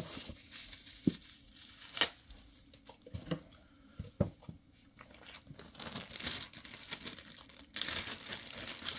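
Plastic packaging bags crinkling and a cardboard box rustling as kit parts are handled and lifted out, with a few sharp clicks and knocks in the first half and denser crinkling near the end, when a bag of tubing is picked up.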